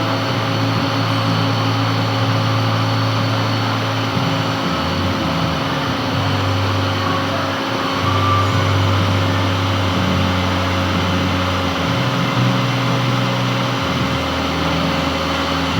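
Metal lathe running while turning a gland: a steady machine hum whose low tone shifts in pitch every couple of seconds.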